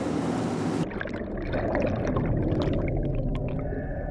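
Wind and wake noise of a running fishing boat. Under a second in it cuts abruptly to a muffled underwater rumble full of bubbling, crackling pops from churning water.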